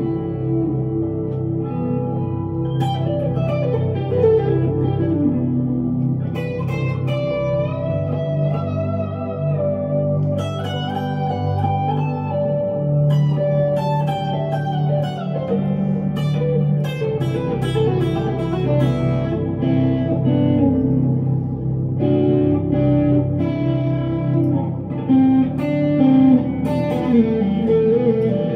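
1965 Fender Stratocaster electric guitar played through a 100-watt Glaswerks Zingaro tube amp with a Celestion speaker and delay and reverb pedals: an unaccompanied-sounding, slow melodic lead of sustained single notes with bends, over steadily ringing low notes.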